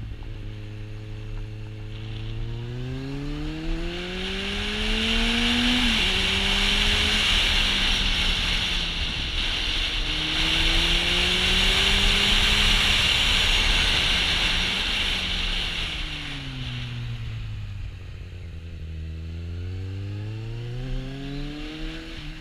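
Kawasaki Z800e's inline-four engine through an Akrapovic exhaust, pulling up through the revs with an upshift about six seconds in. It keeps pulling, then eases off and slows, and builds revs again near the end. Wind rushes over the microphone, loudest while the bike is going fastest.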